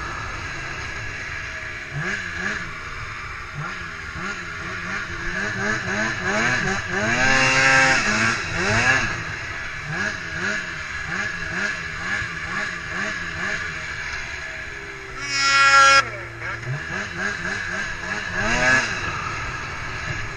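Polaris IQR 600 snowmobile's two-stroke engine, freshly rebuilt with new cylinders and pistons, revving up and down in quick repeated swells about twice a second. About 15 s in it holds a high, loud rev for about a second, then cuts off suddenly.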